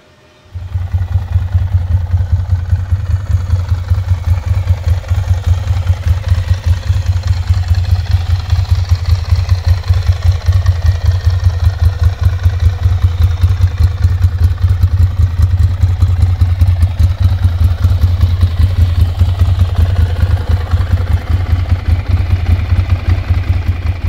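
Ducati Monster 696's air-cooled L-twin engine running steadily at idle, loud and close, with a rapid, even pulsing beat that starts abruptly about half a second in.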